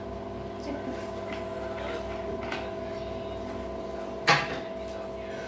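Steady hum of several constant tones, with one sharp knock about four seconds in.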